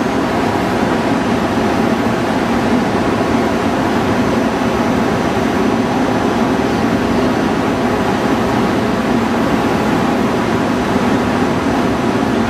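Steady, loud hum of the rooftop air-conditioning units of a Shinkansen train standing at the platform.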